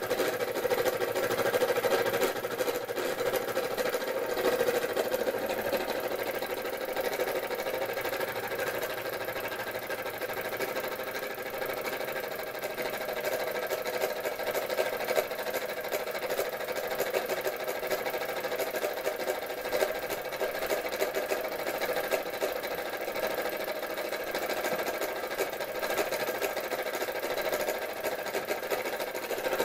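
Linemar J-2734 toy steam engine running steadily under steam, a fast, even mechanical clatter with no change in speed.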